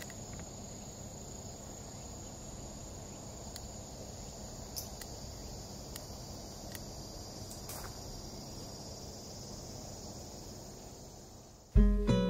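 Outdoor ambience of a steady, high-pitched insect drone over a low background rumble, with a few faint ticks. Near the end the ambience fades and acoustic guitar music comes in loudly.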